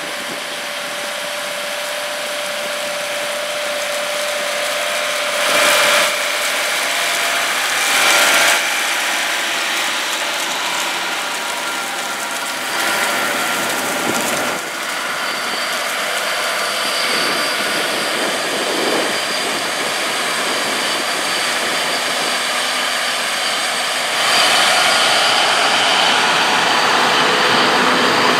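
John Deere 9360R four-wheel-drive tractor running as it pulls a Brent 1082 grain cart, a steady engine sound mixed with mechanical rattling. Two brief swells come a few seconds in, and the sound grows louder about three-quarters of the way through.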